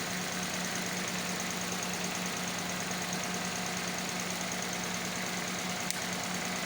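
Toyota Corolla's four-cylinder petrol engine idling steadily with one ignition coil pulled out, so it is running on a missing cylinder. A single sharp click about six seconds in.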